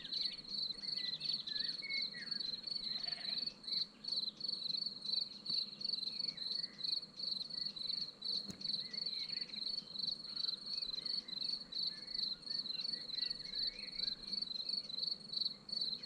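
Cricket chirping in a steady, even rhythm of short high pulses.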